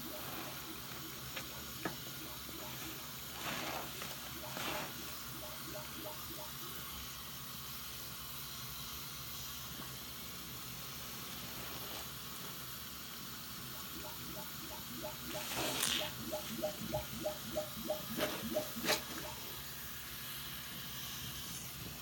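Soap-soaked sponge squeezed and kneaded by hand in a sink full of suds under a running tap: wet squishing of foam over the steady hiss of the tap. About two-thirds of the way through comes a run of quick squelches, about five a second.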